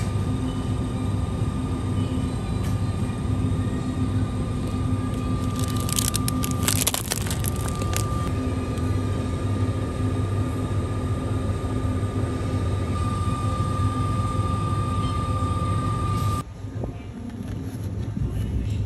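Steady hum of a convenience store's chilled display cases, with a thin steady tone above it. About six seconds in there is a brief crackling rustle, and near the end the hum drops away abruptly to a quieter background.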